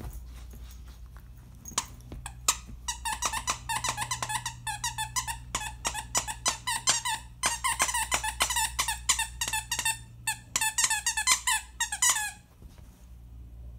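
Squeaker in a plush dog toy squeaking over and over, several squeaks a second, as a puppy bites and chews it. The squeaking begins about two seconds in and stops abruptly near the end.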